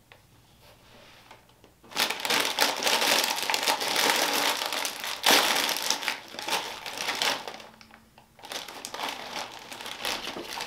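Plastic snack-chip bag being pulled open and crinkled by hand. Loud crinkling starts about two seconds in, eases off briefly near eight seconds, then goes on as lighter rustling.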